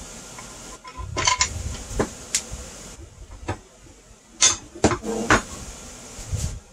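Metal parts clinking and knocking together as a metal suspension support bracket is handled and set onto a Onewheel GT's rails: a scatter of sharp clicks, the loudest few coming about four and a half to five and a half seconds in.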